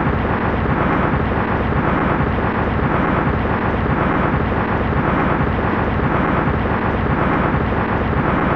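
A loud, steady rumbling roar of dense noise with no clear pitch.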